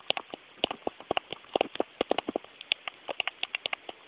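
Quick, irregular small plastic clicks and taps, several a second: a Lego minifigure being tapped along the studded Lego baseplate as its footsteps.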